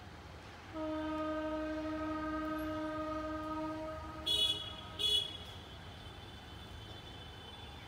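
Horn of an approaching WAP-7 electric locomotive: one long, steady blast of about three seconds, then two short, louder high-pitched toots about a second apart.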